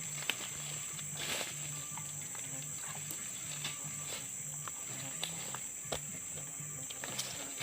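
Insects chirring in a steady high-pitched drone, with scattered faint clicks and a low pulsing hum underneath.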